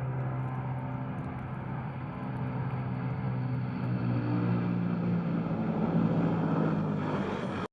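Tu-95MS bomber's four turboprop engines droning steadily, the pitch stepping up about four seconds in. The sound cuts off suddenly near the end.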